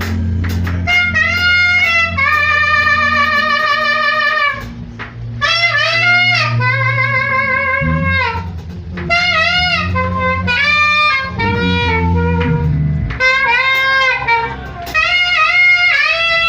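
Saxophone playing a praise-and-worship melody in phrases, with vibrato on the held notes and brief breaks between phrases, over sustained low bass notes.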